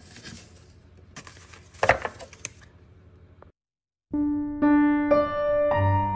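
Soft rustling and a few taps of paper cards being handled, with one sharper tap about two seconds in. After a brief silent gap, gentle piano background music starts and carries on, louder than the handling.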